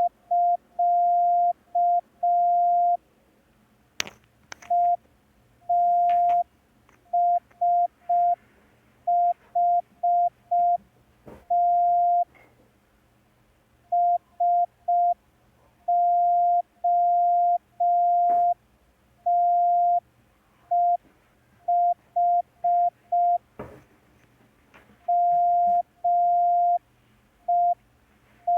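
Morse code practice tone: one steady mid-pitched beep keyed on and off in short dots and long dashes, sending random groups of the letters E, I, S, H, T, M and O at a slow receiving-drill pace with clear gaps between characters. A few faint clicks fall in between.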